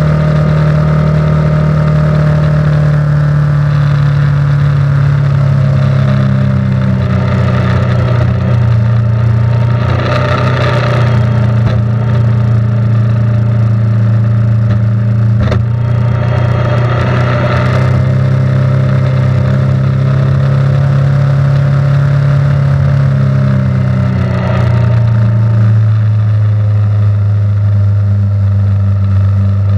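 A vehicle engine running steadily and loudly. Its pitch steps down slightly a few times, and there are brief rushes of higher noise about ten and seventeen seconds in.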